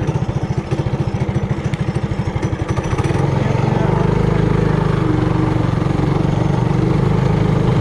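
Single-cylinder four-stroke engine of a Trailmaster Hurricane 200X mini bike idling in distinct pulses, then throttled up about three seconds in and running steadily at higher revs.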